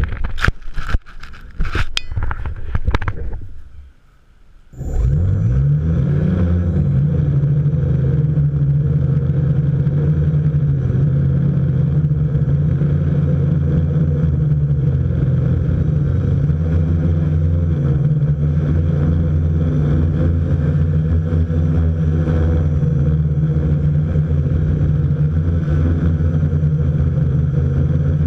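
Quadcopter crashing and tumbling in grass: a quick run of knocks and clatter for about three seconds. About five seconds in, its electric motors and propellers spin up and then run steadily, a loud multi-tone drone heard close up from the GoPro mounted on the aircraft.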